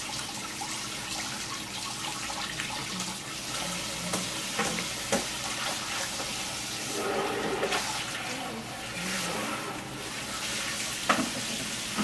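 Steady hiss throughout, with a few light clicks and taps as a plastic fabric-paint bottle is handled.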